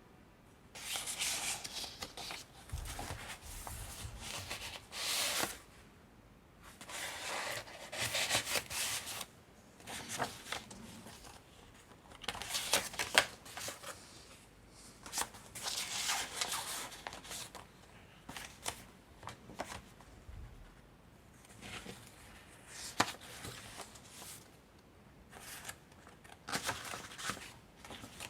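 Paper pages of a handmade junk journal being turned and handled: repeated rustling swishes of a second or so each, with short pauses and a few light taps between them.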